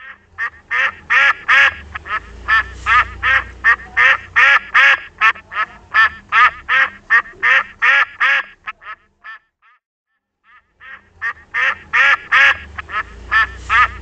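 Duck quacking in a rapid run of short, repeated quacks, about three a second. The quacking breaks off about nine seconds in and starts again a second or two later.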